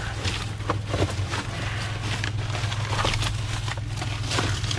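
Plastic bags and packaging rustling and crinkling in irregular bursts as trash is rummaged through by hand, over a steady low hum.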